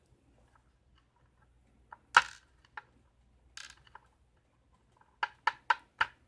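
Small metal lock parts and tools being handled on a hard work surface: a sharp click about two seconds in, a brief rustle, then four quick clicks near the end.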